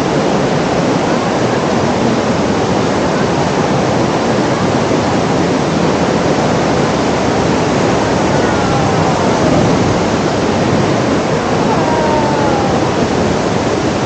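Waterfall pouring, a loud, steady rush of falling water.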